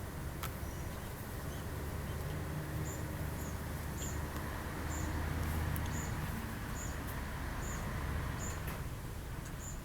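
Wind rumbling on the microphone outdoors, swelling a little midway, with short high chirps repeating about twice a second.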